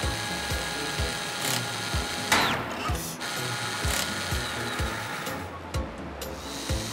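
Cartoon sound effects of a robotic claw arm moving: a mechanical whirring with a whoosh a little over two seconds in, over background music with a steady beat.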